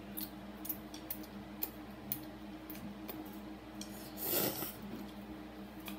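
Chopsticks clicking lightly against ceramic bowls during noodle eating, with one louder slurp of noodles about four seconds in.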